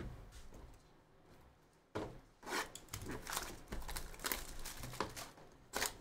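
A cardboard box of trading cards being opened: its lid and seal scraped and torn, and the foil wrapping inside crinkling, in a dense run of scratchy rustling from about two seconds in. There is a dull knock at the very start as a box is set down on the table.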